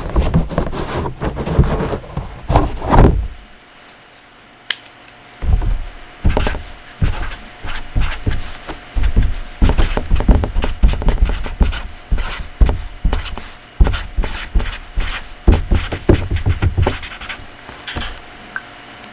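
Irregular rubbing, tapping and knocking in short strokes, louder and lower for the first three seconds and then scattered from about five seconds in, over a faint steady hum. This is the handling and writing noise of a lecturer working at a board or desk.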